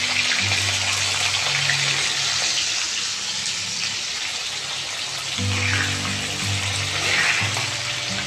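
Potato chunks frying in hot mustard oil in a kadai: a steady sizzle, with soft background music underneath.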